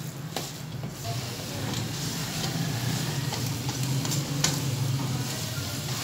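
Wooden spatula stirring and scraping grated carrots in a metal karahi, with irregular scrapes over a steady sizzle and a low hum underneath. The carrots are cooking down in the water the added sugar has released, on the way to drying out.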